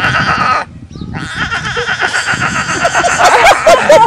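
Lion cub calling in long, bleating, bawling cries, two of them with a short break between. Near the end a quick run of short chuckling sounds starts.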